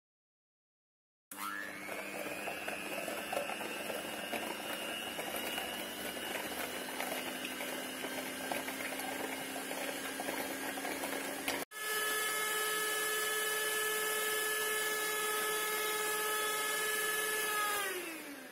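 Pigeon electric hand mixer's motor whirring as its beaters whip instant coffee, sugar and water into dalgona foam. It starts about a second in and breaks off briefly past the middle. It then resumes at a higher, steadier pitch and winds down, falling in pitch, near the end.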